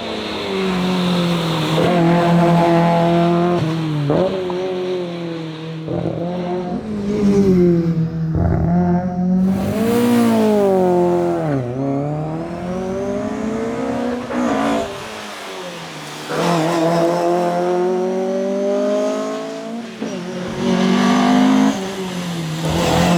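Fiat Abarth 131 Rallye's two-litre twin-cam four-cylinder engine at full rally pace, revving up and down through the gears. The pitch climbs under acceleration and drops sharply on gear changes and braking, with the deepest drop about twelve seconds in.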